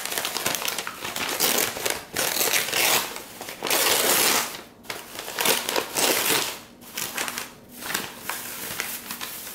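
Newspaper wrapping being crumpled and torn open by hand, in several rustling surges a second or so long, with shredded-paper packing rustling as it is pulled apart.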